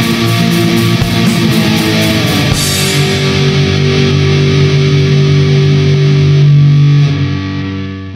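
Raw black metal with distorted electric guitar. About three seconds in, the band stops on one held chord that rings on and fades out near the end, closing the song.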